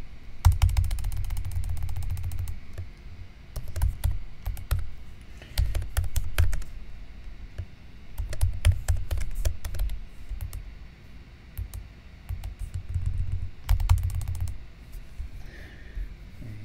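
Typing on a computer keyboard: rapid key clicks with dull thuds, in about five short bursts with pauses between them.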